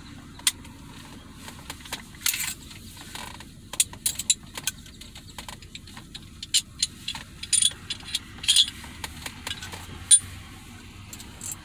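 Irregular metallic clicks, snaps and scrapes of a Stoeger Cougar 8040 .40-calibre pistol being field-stripped by hand, as the slide, recoil spring and barrel come off the frame.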